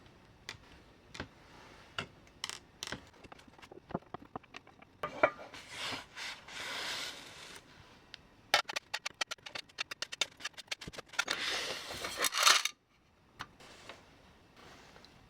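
Small metal parts and tools handled on a workbench during the strip-down of a vintage Märklin 3029 model train: scattered sharp clicks and clinks, a quick run of rapid clicks just past the middle, and a few stretches of scraping.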